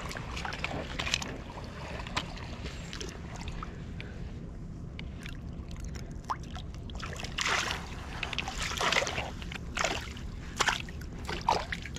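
Water splashing and sloshing around a landing net lowered into a shallow creek to let a brown trout go, in several short bursts over the last few seconds.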